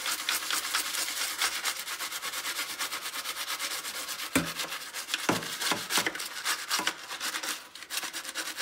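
Soapy toothbrush scrubbing a wet circuit board with quick back-and-forth strokes, cleaning leaked capacitor electrolyte off the board. A few knocks come about halfway through.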